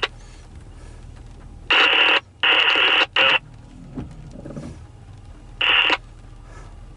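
Railroad scanner radio keying up in short harsh transmissions: three in quick succession about two seconds in, and one more near the end. A windshield wiper sweeps once across the glass about four seconds in.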